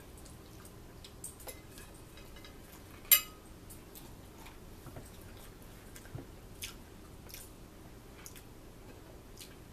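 Forks clicking and scraping against plates of fish and fries while eating, with one sharp, louder clink about three seconds in and soft chewing between.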